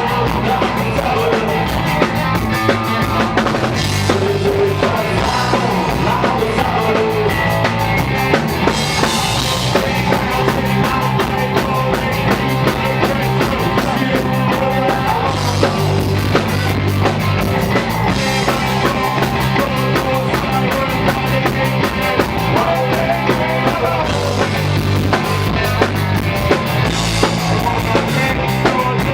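Punk rock band playing live, a driving drum kit and bass guitar to the fore under the rest of the band.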